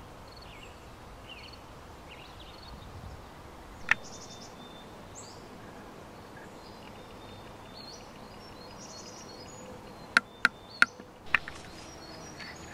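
Outdoor ambience: small birds chirping on and off over a steady background hiss. A single sharp click comes about four seconds in, and a quick run of four sharp clicks near the end; these clicks are the loudest sounds.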